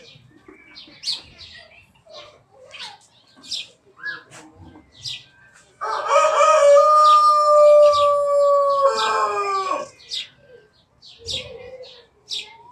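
A rooster crowing: one loud, drawn-out call about halfway through that holds steady and breaks up at its end. Small birds chirp briefly before and after it.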